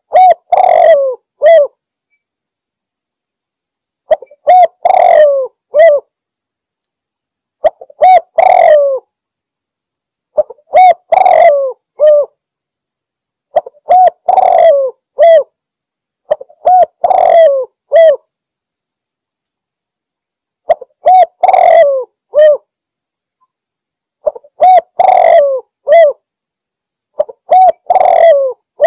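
Spotted dove (tekukur) cooing: the same phrase of several short coos, repeated about every three seconds with silence between.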